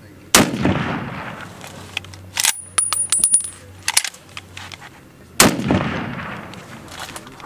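Two rifle shots about five seconds apart, each with an echo trailing off for a second or more. Between them come light clicks and a brief high metallic ring.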